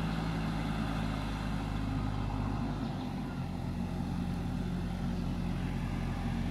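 JCB backhoe loader's diesel engine running steadily as the machine drives forward with its loaded front bucket raised. Its note shifts slightly about three seconds in.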